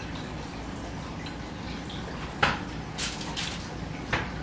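Chicken breasts being set down on a tinfoil-lined baking tray: a couple of sharp knocks and two brief crinkles of foil over a steady low hum.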